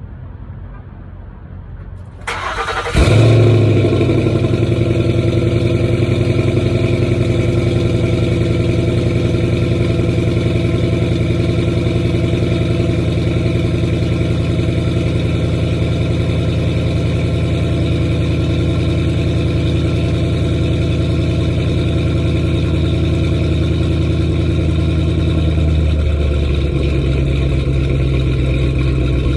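2010 Ford Mustang GT's 4.6-litre V8 starting about two to three seconds in, then idling roughly; the owner suspects bad fuel injectors. Near the end the idle note shifts slightly lower.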